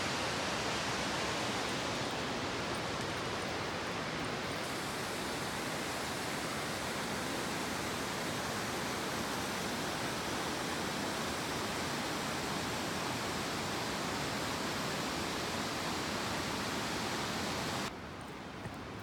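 Steady rushing of a waterfall, an even roar of falling water with no break. It drops abruptly to a quieter rush near the end.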